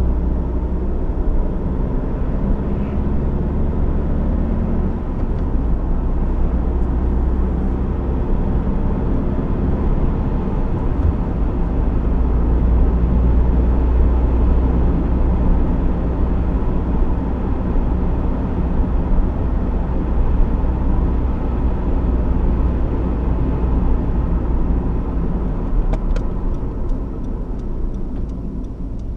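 2015 Honda CR-V's 1.6 i-DTEC turbo-diesel engine and road noise while driving, a steady low rumble that eases slightly near the end.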